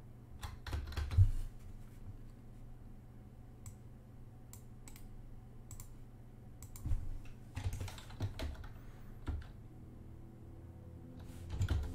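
Computer keyboard being typed in a few short bursts of keystrokes with pauses between them.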